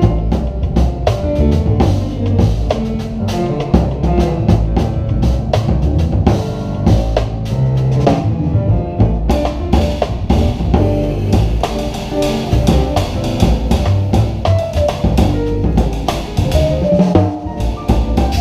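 Jazz drum kit played busily with sticks, with rapid snare, bass drum and cymbal strokes, in a live jazz trio with double bass and other pitched instruments underneath.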